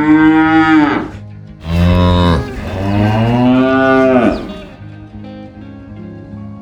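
Cow mooing: one long moo ends about a second in, then a second, longer moo follows from about one and a half to four and a half seconds.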